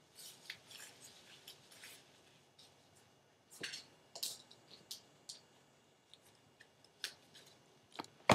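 Gloved hands rustling and handling hair as it is parted into two sections, with scattered small clicks and one sharp, louder click near the end.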